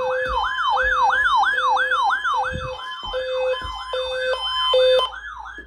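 Loud electronic siren tone in a yelp pattern: rapid falling sweeps, about three a second, over a separate steady beep that switches on and off. It cuts off suddenly near the end.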